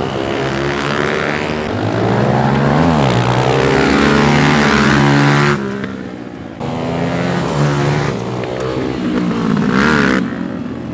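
Several dirt bikes racing on a dirt flat track, their engines revving up and down against each other. The sound drops away sharply a little past halfway and picks up again about a second later.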